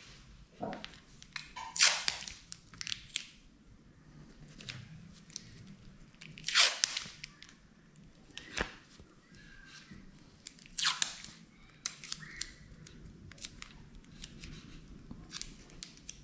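Masking tape being pulled off and torn into short strips by hand: irregular rips and crackles, three of them louder than the rest.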